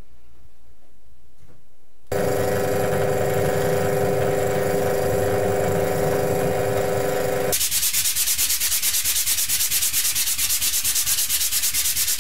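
Power tool sanding: about two seconds in, a steady motor whine with a rough rasp under it starts abruptly. About halfway through it changes sharply to a rhythmic rasping at about nine strokes a second, which runs until just before the end.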